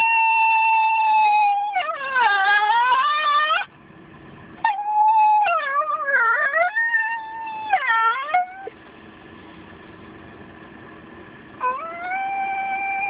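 White miniature schnauzer howling in long, drawn-out notes whose pitch holds and then wavers down and up. There are three bouts: one running from the start to about 3.7 s, one from about 4.6 to 8.6 s, and a last note that slides up and holds from about 11.7 s.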